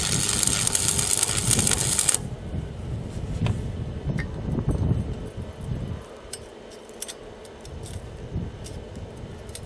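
Stick (arc) welding: the electrode's arc crackles and hisses loudly, then cuts off abruptly about two seconds in. Afterwards only faint scattered clicks.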